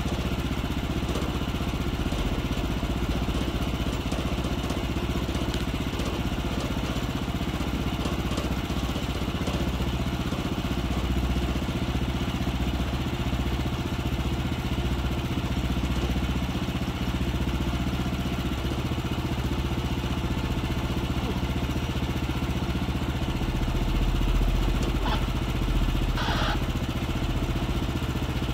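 The 14 hp engine of a Woodland Mills HM126 sawmill idling steadily. Near the end come a couple of short metallic knocks.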